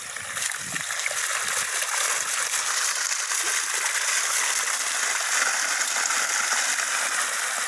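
Water spilling in a shallow sheet over the concrete spillway of a small farm reservoir, a steady rushing that comes up a little after the first second. The reservoir is full and overflowing.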